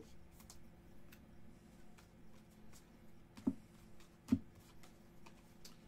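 Trading cards being handled and sorted by hand: faint ticks of cards moving against each other, with two sharper taps about three and a half and four and a quarter seconds in, over a low steady hum.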